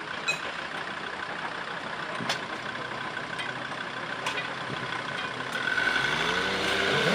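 Steady road and outdoor noise with a sharp click about every two seconds. About six seconds in, motorcycle engines start up louder, their pitch rising as they pull away.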